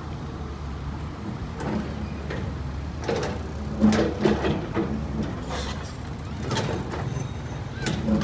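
Excavator's diesel engine running steadily, with a run of sharp clanks and knocks starting about three seconds in.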